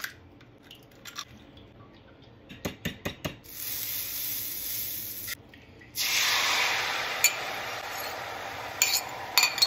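Sharp taps and clicks of eggs being cracked and beaten in a small bowl, then butter sizzling in a preheated cast iron skillet. About six seconds in the beaten eggs are poured in and a louder sizzle starts and slowly eases, with a few clinks of the bowl and utensil against the pan.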